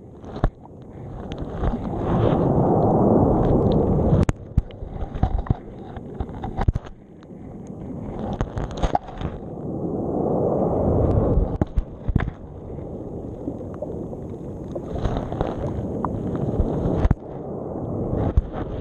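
Muffled underwater wash of surf around a GoPro dragged along the sea bed, swelling and fading every several seconds, with many sharp clicks and knocks as the camera strikes the bottom.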